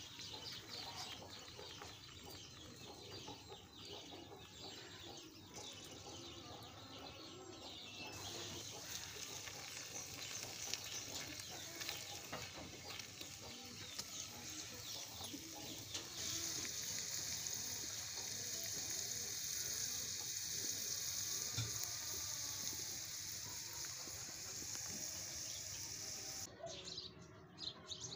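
Potato strips deep-frying in hot oil in a small steel bowl, a steady sizzle with crackling that grows louder a little past the middle and cuts off shortly before the end.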